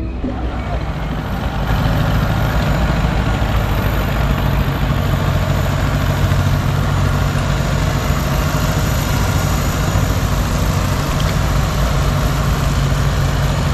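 Small boat engine running steadily, its low drone growing a little louder about two seconds in.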